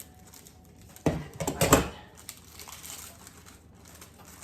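Plastic sleeve of saltine crackers crinkling as it is torn open, with a loud burst of rustling about a second in and lighter rustles after.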